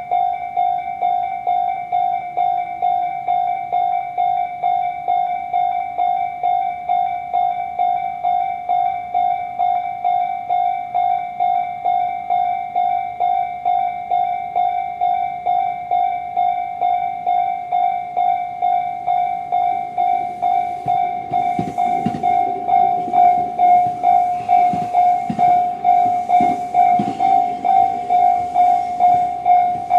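Tobu Railway level-crossing alarm ('Tobu sound C') ringing: one electronic tone repeating rapidly and evenly. About twenty seconds in a train comes through the crossing, adding rushing noise and the thumps of its wheels over the rails.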